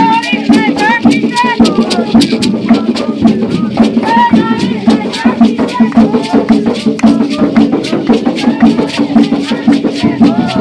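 Maracás shaken in a steady, fast rhythm, with voices singing over them in a Jurema ritual chant.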